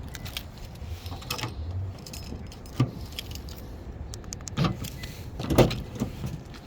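A few scattered clicks and knocks of hands handling something at the rear of a pickup truck, the loudest about five and a half seconds in, over a low steady rumble.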